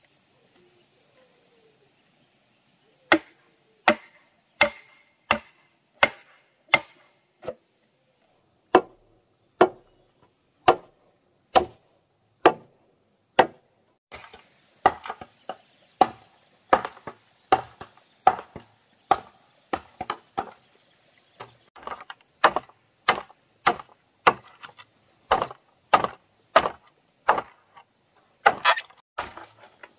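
Machete chopping and splitting bamboo: a run of sharp, woody chops, roughly one a second at first, then quicker from about halfway. A steady high insect drone runs underneath.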